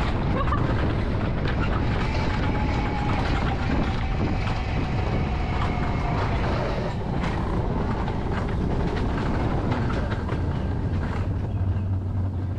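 Wiegand alpine coaster sled running at speed along its tubular steel rails, a steady rolling rumble of the wheels on the track. A faint whine falls slightly in pitch a few seconds in, and a low hum grows stronger near the end.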